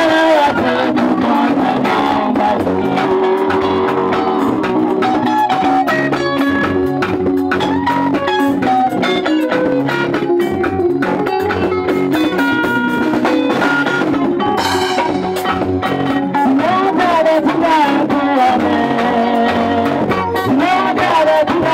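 Live band playing: guitar and drum kit with keyboard, and a voice singing over them.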